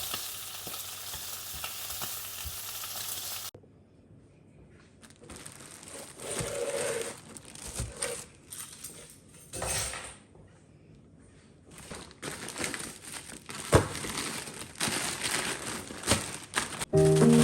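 Food sizzling as it fries in a pan, a steady hiss that cuts off abruptly about three and a half seconds in; after that come scattered kitchen clatter and handling noises.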